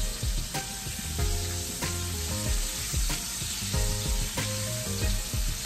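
Chicken party wings sizzling as they fry in a skillet, a steady hiss. Background music with a regular beat plays underneath.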